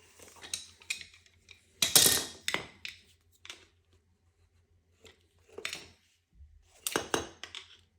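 Metal parts of a fuel injector and fuel rail clicking, clacking and scraping as they are worked by hand with tools to snap a piece into place. The loudest clack, with a short ring, comes about two seconds in, and a sharp pair of clicks comes near the end.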